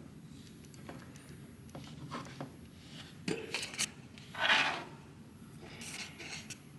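Light clicks, taps and rubbing of a plastic action figure being handled and posed, with one louder short scrape about two-thirds of the way in.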